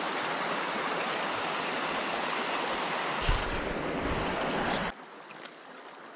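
Shallow mountain stream rushing over stones close to the microphone, with a few knocks of handling on the camera about three seconds in. Near the end of the fifth second the rushing drops abruptly to a quieter, muffled hiss as the camera goes into the water.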